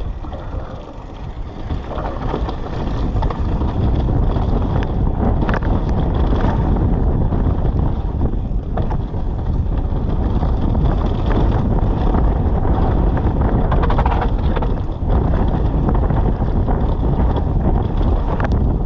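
Wind buffeting the microphone of a mountain bike's on-board camera, with rumble and rattle from the bike riding down a rough trail. It gets louder over the first few seconds as the bike picks up speed, and there are a few sharp knocks from bumps.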